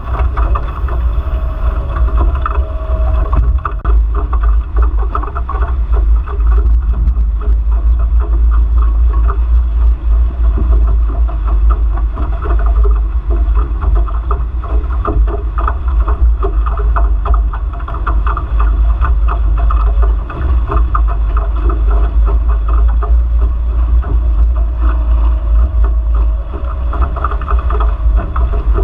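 Wind buffeting the microphone of a camera mounted on a Nacra Infusion F18 catamaran sailing fast, over the constant rush and splash of water along its hulls. A faint steady whine comes in briefly about a second in and again near the end.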